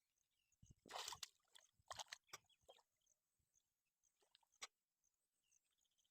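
Faint water splashing and sloshing in a few short bursts: a longer one about a second in, more around two seconds, and a last one near the middle.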